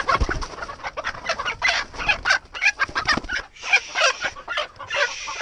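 Hens squawking and clucking in quick, repeated calls as one is grabbed by hand and caught.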